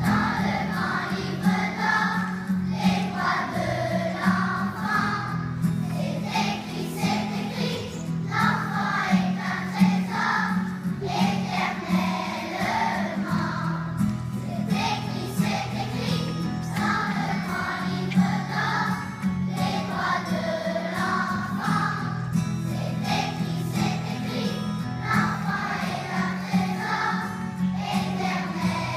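Large children's choir singing a song, in phrases with brief breaks, over steady low musical accompaniment.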